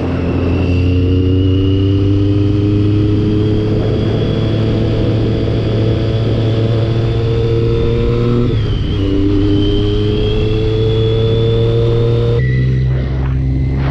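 Motorcycle engine pulling uphill under steady throttle, its pitch climbing slowly, falling sharply once about two-thirds of the way through as it shifts up a gear, then climbing again, with another change in pitch near the end.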